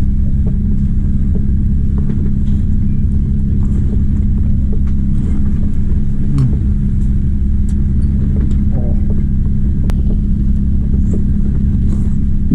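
Fishing boat's engine running steadily under way, a constant low drone with a steady hum.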